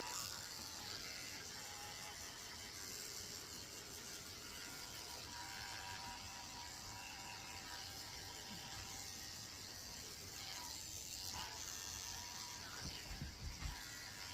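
Electric dog grooming clippers running faintly and steadily while shaving a dog's face, head and neck, with a few soft knocks near the end.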